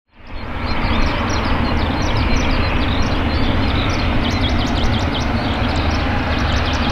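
Boeing 737-800 CFM56-7B turbofan engines running at low power on the runway, a steady rumble and hiss that fades in quickly at the start. Birds chirp over it throughout.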